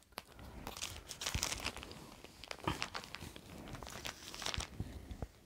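Plastic photocard sleeves crinkling and rustling, with small irregular clicks and taps, as photocards are handled and slid into binder pockets.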